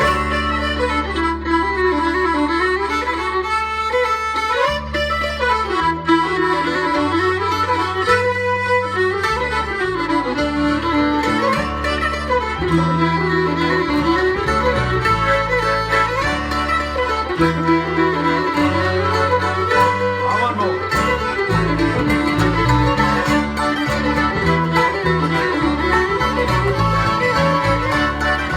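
Live bluegrass band with accordion playing an instrumental break without singing: fiddle and accordion carry the melody over guitar and stepping bass notes.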